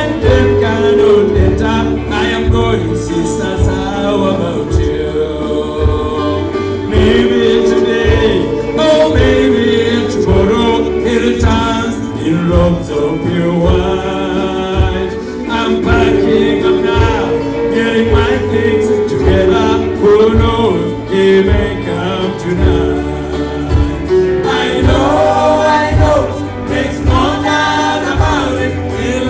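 Gospel choir singing over a band with a steady beat.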